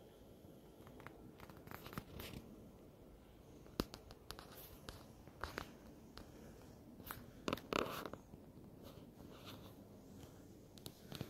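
Faint rustling and scattered sharp clicks of handling and movement in a quiet small room, with one sharp click about four seconds in and a louder cluster of rustles and clicks about two-thirds of the way through.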